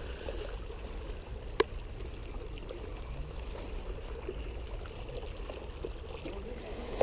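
Sea water lapping and washing against breakwater rocks, a steady low wash with rumble in the lows. A single sharp click about one and a half seconds in.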